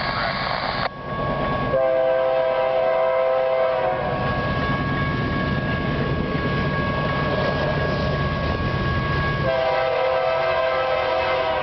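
Air horn of an approaching freight train's lead locomotive, a GE C44-9W, sounding a multi-note chord for a grade crossing: one blast of about two seconds starting about two seconds in, then a second blast starting near the end, with the train's rumble between them. It opens with a brief hiss of radio-scanner static.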